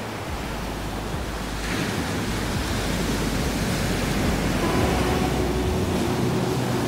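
Surf washing onto a beach: a steady rush of breaking waves that swells louder about a second and a half in. A few faint held musical tones come in about two-thirds of the way through.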